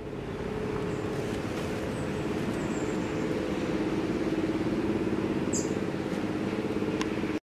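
A steady low mechanical hum, with a few short, high bird chirps over it and a single sharp click near the end.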